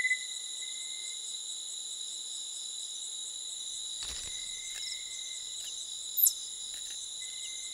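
Night forest insect chorus: crickets and other insects trilling steadily at several high pitches, with a thin tone near 2 kHz coming and going. A soft thump comes about four seconds in, and a short, sharp rising chirp a little after six seconds is the loudest moment.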